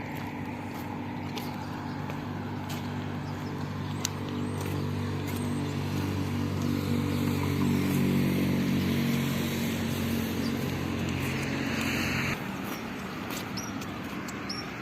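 A motor vehicle's engine running with a steady low hum that grows louder toward the middle, then cuts off abruptly about twelve seconds in, leaving road and outdoor noise.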